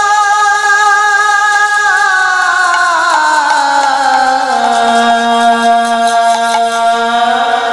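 Bengali kirtan music without words: a held melodic line slides down in pitch about three seconds in and then holds a lower note over sustained accompaniment. Faint ticks of hand cymbals run through it.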